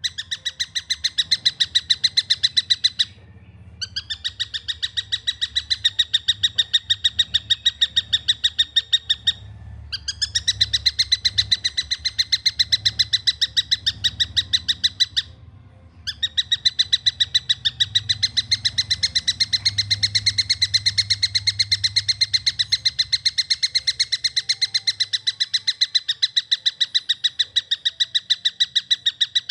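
Young tengkek buto kingfisher calling in fast, tightly packed runs of short, clear chirps, about five a second, with brief pauses three times between the runs.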